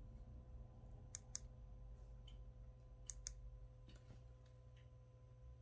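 Near silence over a low steady hum, broken twice by a pair of faint, sharp clicks: the metal hardware of a Louis Vuitton Speedy Bandoulière 30 handbag clinking lightly as the bag is handled.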